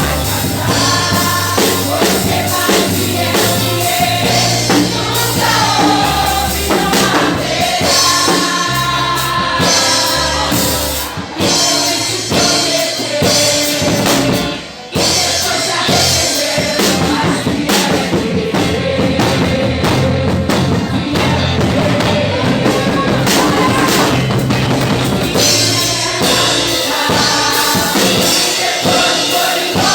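Music with singing over drums and bass, dipping briefly about eleven seconds in and cutting out for a moment about fifteen seconds in.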